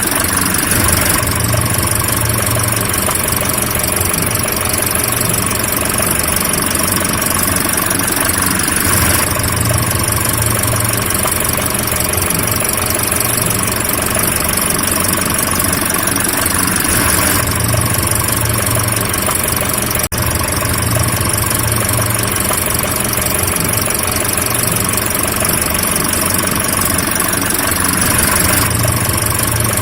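Car engine idling steadily, with a momentary dropout about two-thirds of the way through.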